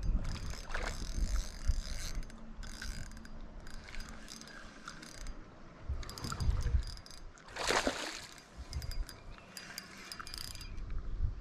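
Spinning reel being cranked to bring in a hooked smallmouth bass, its gears ticking and clicking quickly. A brief, louder rush of noise comes about three-quarters of the way through.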